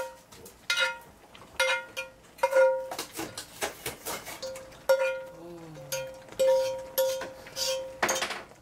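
A utensil scraping and knocking against a cast-iron skillet while browned duck pieces are tipped out of it into a pot of noodles: about eight sharp metal knocks, each leaving a short ringing tone.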